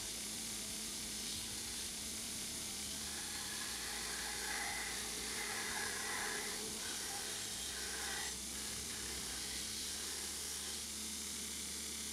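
Belt grinder running, its abrasive belt grinding a steel knife blade blank as the blade is pressed against it, a steady hissing rasp. The grinding is louder from about three to eight seconds in.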